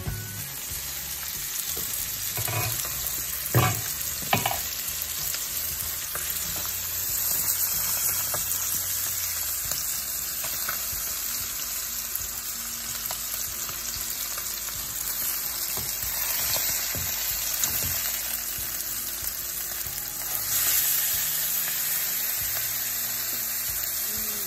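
Tilapia fillets sizzling steadily as they fry in oil in a skillet. A few sharp knocks of the spatula and tongs against the pan, the loudest about three and a half seconds in.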